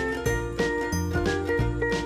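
Background music with tinkling, bell-like notes over a stepping bass line.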